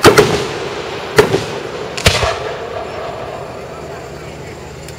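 Aerial fireworks shells bursting overhead: four sharp booms in the first two seconds, the first two almost together, each trailing off in a rumbling echo, then the sound dies down over the last couple of seconds.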